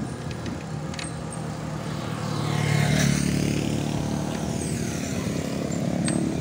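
Motor vehicle engine running with road noise, growing louder about two to three seconds in.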